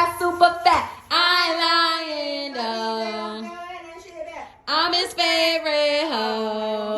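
A high voice singing two long, drawn-out phrases, with little or no beat or bass behind it.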